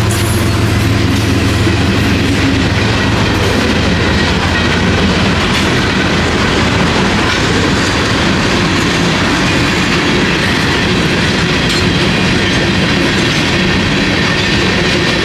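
Freight cars (covered hoppers, boxcars and tank cars) rolling past, with a steady rumble and clatter of steel wheels on the rails.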